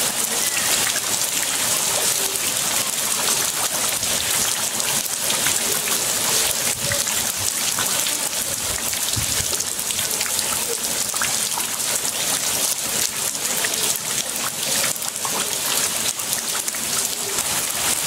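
Heavy rain falling steadily, a dense patter of drops on wet stone and splashing into flowing muddy water.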